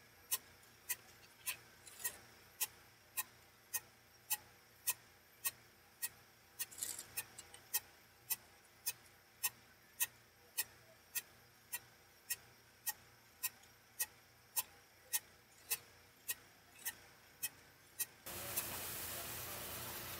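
Blastcrete H-020 skid-steer gunite machine running, giving a sharp click repeated at an even pace of a little under two a second. Near the end a steady rushing hiss takes over: compressed air and dry-mix gunite spraying from the nozzle onto a wall.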